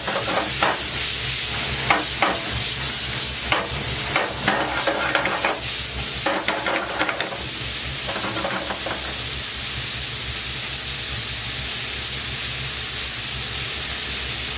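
Bacon lardons frying in a hot pan with a little butter, a steady sizzle. Over the first half or so, a utensil scrapes and clicks against the pan as the bacon is stirred; after that the sizzle goes on alone.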